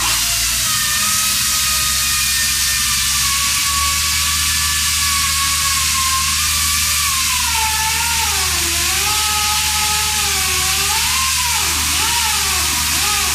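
CS Unitec pneumatic concrete chain saw running in a cut through a concrete block: a loud steady hiss with a whine whose pitch wavers and dips under load, most in the second half.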